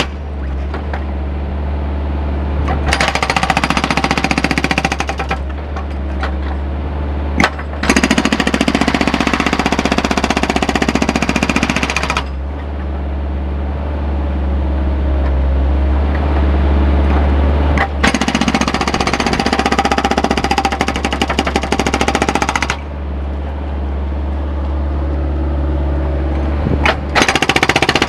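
GB GBM180L hydraulic breaker on an excavator hammering its chisel into a concrete slab: a rapid, even stream of blows that comes in runs of a few seconds. A steady low hum runs beneath it.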